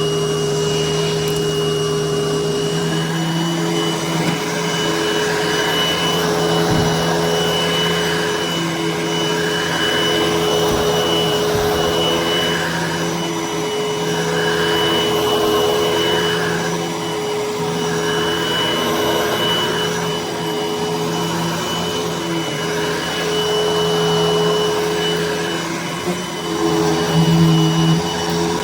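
Hoover vacuum cleaner running on carpet: a steady motor hum and whine under a rushing air sound that swells and fades every second or two.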